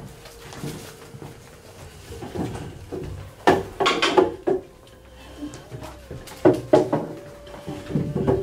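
Handling noises at a table as cardboard burger boxes are opened, handled and set down: scattered sharp knocks and rustles, loudest in a cluster near the middle and again a few seconds later.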